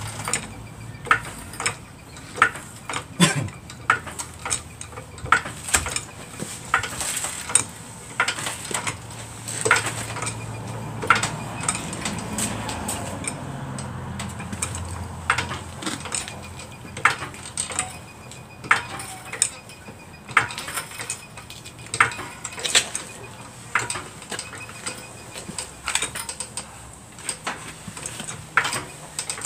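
Hydraulic floor jack being pumped by its handle to lift the front of a car by the subframe: a steady series of sharp metallic clicks and clanks, roughly one every 0.7 seconds.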